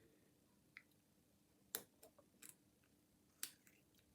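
Faint, sparse metallic clicks of a hacksaw-blade pick and tension tool working the pin stacks inside a Squire LN3 padlock, about four clicks spread a second or so apart.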